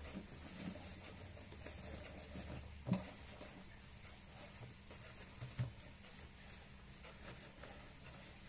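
A black fabric waist bag being handled by hand: faint rustling and brushing of the fabric, with a sharp knock about three seconds in and two softer knocks a little past the middle.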